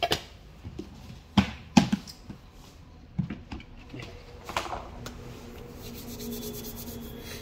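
Clip-on lid of a plastic storage tub being unclipped and lifted off: several sharp plastic clicks and knocks, then a short rustle as the lid comes away. A faint steady hum comes in near the end.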